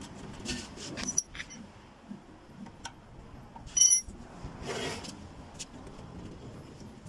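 Rubbing and scraping handling noises with a few short clicks, and one sharp metallic clink about four seconds in, from hands working on a 3000-watt petrol generator while its engine oil is checked.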